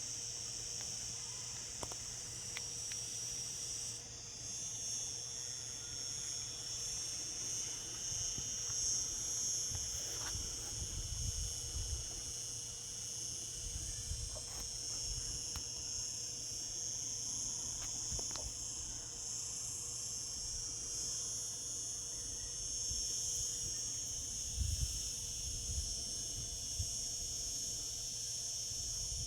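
Cicadas singing in a steady, high-pitched chorus that swells about four seconds in, with a few low rumbles now and then.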